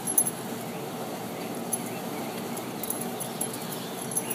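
Miniature schnauzer sniffing and rustling about in grass, with scattered faint high clicks.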